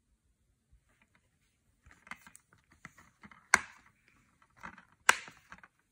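Plastic Blu-ray case being handled and snapped shut: light clicking and rattling, with two sharp snaps about a second and a half apart, the first about three and a half seconds in.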